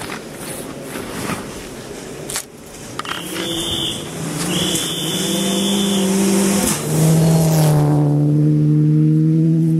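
Rally car engine at full throttle, approaching and getting steadily louder, its pitch rising, then dropping sharply at a gear change about two-thirds of the way through before holding loud and high as the car passes close. Several sharp cracks sound in the first three seconds.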